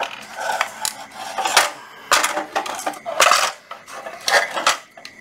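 Handling noise from a National EZ3511 cordless metal-cutting circular saw: a handful of irregular sharp metallic clicks and clatters as the saw and its blade guard are turned and shifted in the hands.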